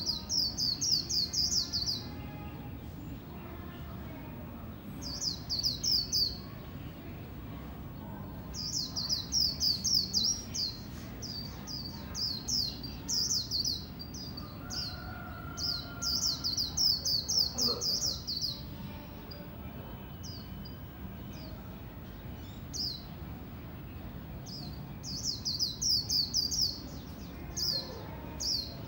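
Caged white-eye singing its fast twittering 'líu' song: bursts of rapid, high chattering notes a second or two long, repeated several times with short pauses between, over a low steady hum of background noise.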